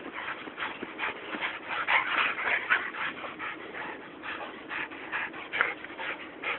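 A dog making many short, high-pitched whines and yelps in quick succession, busiest and loudest about two to three seconds in.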